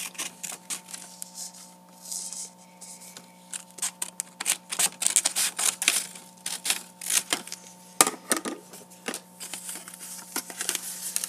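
Scissors snipping paper, with paper rustling as it is handled: an irregular run of crisp clicks and snips, busiest in the middle, with one sharp click about eight seconds in.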